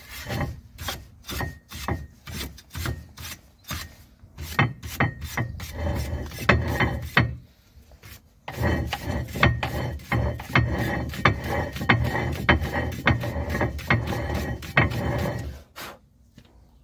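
Brake dust being scrubbed off brake parts with quick back-and-forth rasping strokes. The strokes pause briefly about halfway, then resume faster and more continuously before stopping near the end.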